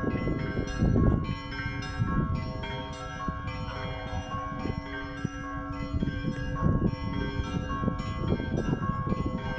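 Russian church bells ringing a peal: several bells of different pitches struck in quick, overlapping strokes, each tone ringing on under the next.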